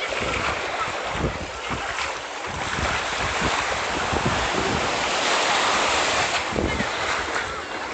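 Sea surf washing in, with wind buffeting the microphone in irregular low thumps.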